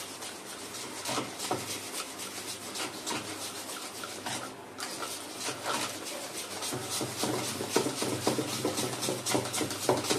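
Thick gram-flour batter being stirred fast in a bowl, the utensil rubbing and scraping the bowl in quick repeated strokes, with a short pause about four and a half seconds in. This is the quick mixing-in of freshly activated Eno fruit salt.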